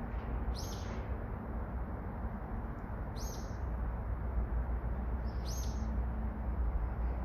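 A bird calling three times, about two and a half seconds apart, each a short high call falling in pitch, over a steady low rumble.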